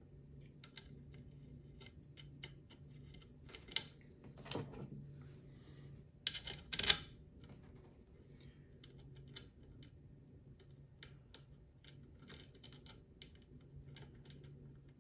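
Small metal clicks and taps of screws and hand tools being handled while screws are fitted back into the machine, with a few louder knocks about six to seven seconds in.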